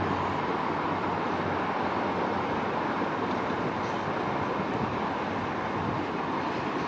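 Steady rumble of airport background noise: ground vehicles and distant jet engines. A low hum fades out in the first second.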